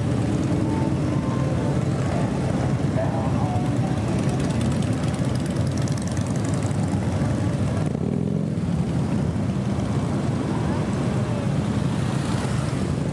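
Steady, dense rumble of many motorcycle engines running together, a mass of bikes riding past.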